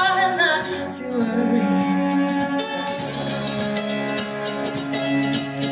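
A song sung to guitar accompaniment; a singer holds a wavering note with vibrato at the start, followed by held musical notes.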